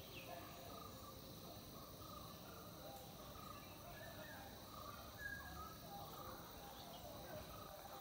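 Faint pond-side ambience with birds calling in the distance: many short chirps at several pitches, scattered throughout, over a soft steady hiss.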